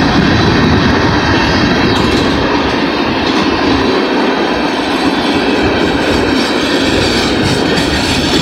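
CSX freight cars rolling past at close range: the steady, loud clatter and rumble of steel wheels on the rails.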